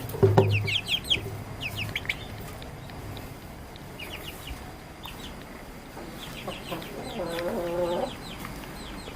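Chickens calling: groups of quick high-pitched peeps in the first two seconds and again later, with a lower clucking call about seven seconds in.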